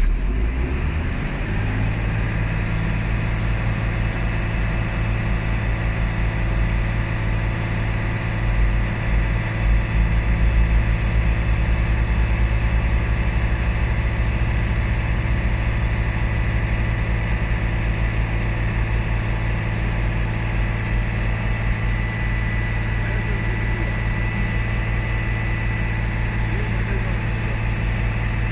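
Volvo B9R bus's diesel engine idling steadily, a low even hum that settles about a second in.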